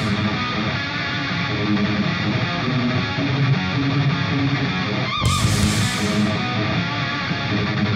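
Background rock music with electric guitar.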